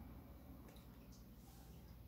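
Near silence: the faint steady hum of a room air conditioner, with a few soft ticks about two-thirds of a second, a second, and almost two seconds in.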